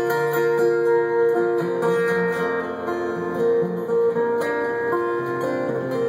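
Solo steel-string acoustic guitar playing an instrumental passage, chords strummed and picked so that the notes ring on.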